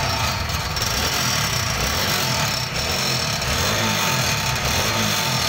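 TVS Apache RTR 160 4V's single-cylinder engine running steadily, with the unwanted noise from its exhaust silencer still there. The owner puts the noise down to a faulty silencer that needs replacing under warranty.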